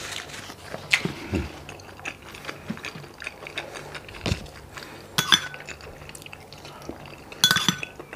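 Hand-eating sounds: fingers working rice on a banana leaf and chewing, with two sharp ringing clinks of a glass dish, about five seconds in and again near the end.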